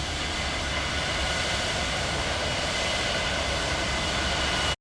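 Airplane engines running steadily: a constant rushing noise with a low rumble and a high, even whine.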